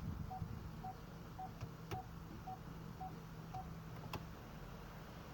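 Faint electronic beeping from a 2013 Ford Escape in reverse, short even beeps about twice a second that stop about three and a half seconds in, over a low steady hum, with two sharp clicks.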